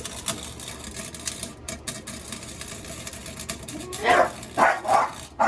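Small 110-volt hobby welder's arc crackling and spitting unevenly as a bead is laid. Near the end it is covered by three short, loud vocal sounds.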